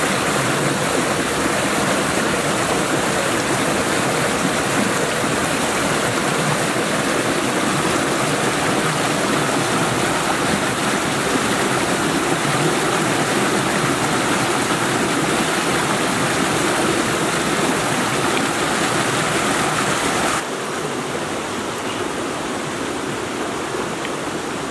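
Shallow rocky stream rushing over stones and small cascades: a steady, dense rush of water that becomes slightly quieter about twenty seconds in.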